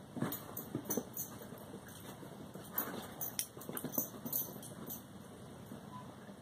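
Two small dogs playing together: scuffling and short dog sounds in two flurries, one in the first second and another from about three to four and a half seconds in.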